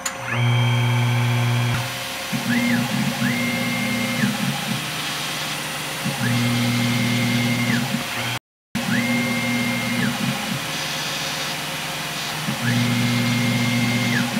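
Tormach 770 CNC mill running with the drill spindle turning, its motors giving a steady hum while the axis moves whine in about six repeated strokes, each rising in pitch, holding and falling away as the drill feeds and retracts through the guide bushings.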